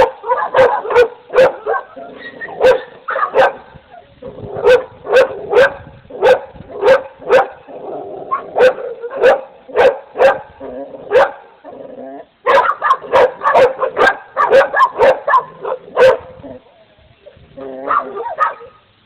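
Several American Pit Bull Terriers barking in quick runs of sharp barks, with a few short pauses and an occasional whine between the runs.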